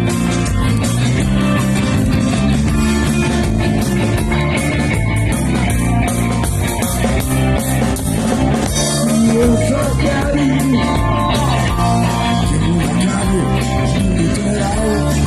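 Rock band playing live: electric guitar, bass and drum kit, with no lyrics sung.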